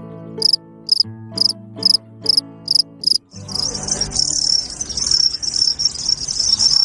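Crickets chirping: evenly spaced high chirps about two a second for the first three seconds, then from about three seconds in a dense, continuous high trill of many crickets together.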